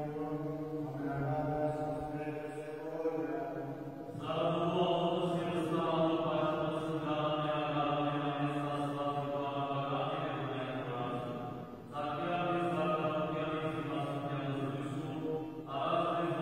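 Unaccompanied male chanting of an Armenian Apostolic liturgical hymn, sung in long sustained melodic phrases over a steady low held note, with short breaks between phrases.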